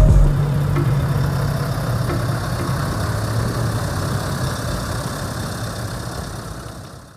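Scania 770S truck's 16.4-litre V8 diesel idling steadily through its stock exhaust with a low, even rumble, fading out near the end.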